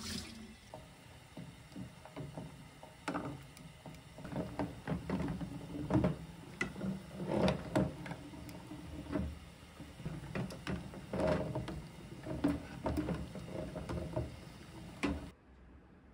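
Glass jar knocking and clinking against a pan of boiling water as it is turned with metal tongs to sterilize it: a run of irregular knocks over a low bubbling, which cuts off suddenly near the end.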